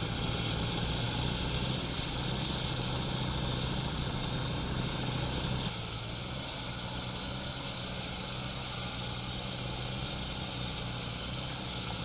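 Walk-behind pavement saw running steadily: an engine hum underneath a strong hiss from the wet blade cutting through the road surface. The sound drops a little in level about halfway through.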